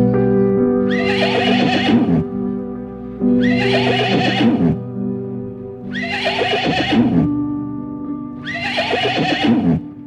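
A horse whinnying four times at even intervals, each whinny about a second long and falling in pitch, over steady background music.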